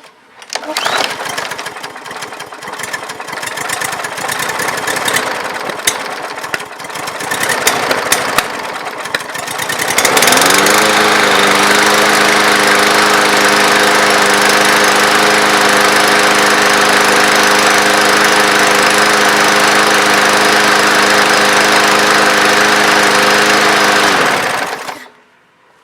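Briggs & Stratton 550EX 140cc single-cylinder mower engine running: uneven and crackling for the first ten seconds or so, then speeding up and running steadily. Near the end it winds down and stops.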